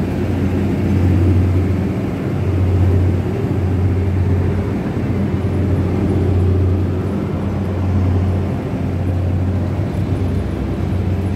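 Steady low machine hum, a deep drone with a few higher overtones, swelling and easing every second or two.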